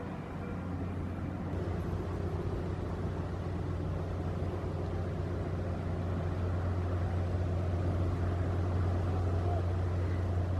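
Diesel engine of an inland motor cargo ship running with a steady low hum that grows slowly louder.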